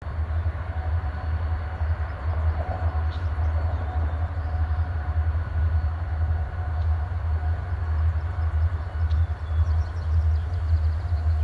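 Approaching freight train led by an EMD SD40-2 diesel locomotive, its engines running with a steady low rumble.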